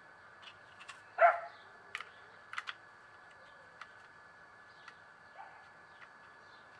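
One short dog bark about a second in, followed by a few light clicks and taps of the RC truck's plastic parts being handled.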